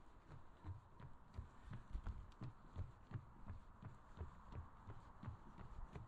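A runner's footsteps on a trail: quiet, even footfalls about three a second.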